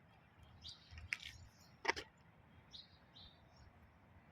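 Small birds chirping in short calls a few times, with one sharp click about two seconds in.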